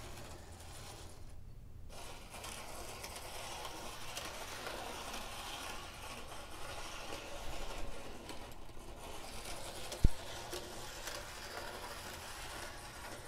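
Faint steady whir of a small N-scale diesel locomotive's motor and wheels running on the track, with one sharp click about ten seconds in. It runs unevenly, which the owner puts down to the tiny locomotive's small contact area with the rails.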